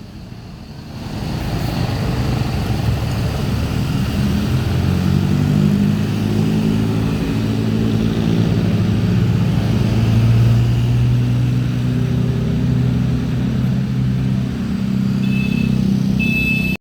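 Tour bus engine running steadily close by, a low, even hum. A few short high beeps come near the end.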